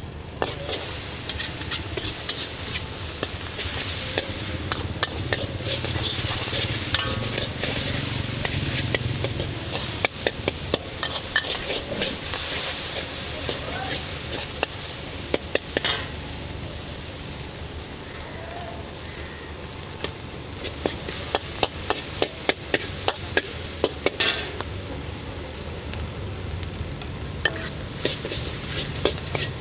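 Char kway teow noodles and duck egg sizzling in a charcoal-fired wok, with a long metal spatula scraping and clanking against the wok in quick runs of strikes.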